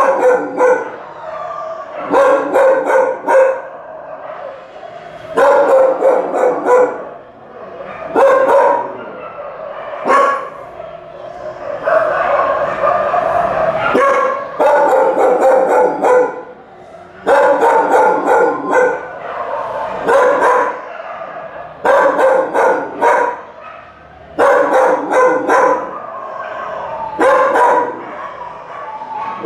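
Dog barking and yelping in repeated bouts about every two to three seconds, with pitched whining in between and one longer drawn-out cry about twelve seconds in.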